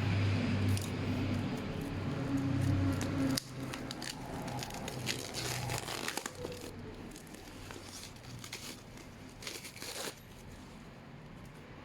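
Packaging being handled: crinkling and rustling with scattered clicks, busiest in the first half and thinning out toward the end. A low hum under it cuts off suddenly about three and a half seconds in.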